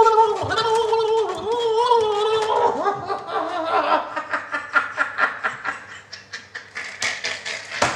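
A man laughing hard: first a long, wavering, high-pitched vocal sound, then a string of short breathy laugh pulses that grow fainter near the end.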